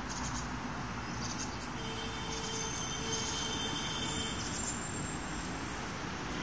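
Steady outdoor background noise with brief high chirps every second or so, and a faint wavering tone in the middle.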